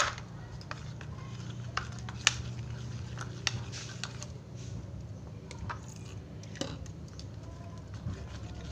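Activated slime being stirred and pressed by hand in a bowl: sticky squelches with scattered sharp clicks against the bowl, over a steady low hum.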